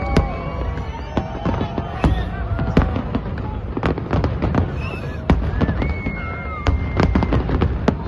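Fireworks going off: many sharp bangs and crackles in quick succession throughout.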